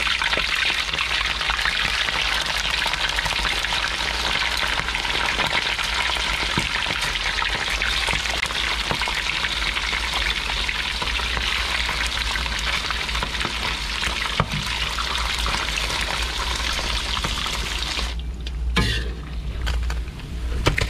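Mullet frying in hot oil, a steady sizzle, with a brief dip in the sound near the end.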